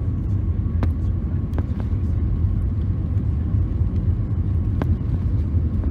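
Airliner cabin noise on final approach: a steady low rumble of engines and airflow heard from a window seat over the wing, with a few faint clicks.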